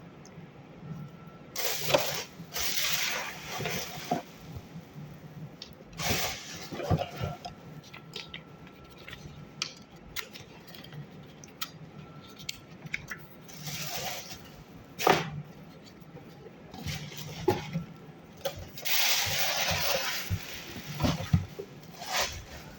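Handling noises from a pair of safety shoes and their packaging: irregular bursts of rustling and scraping, each a second or two long, with several sharp knocks, the loudest about fifteen seconds in.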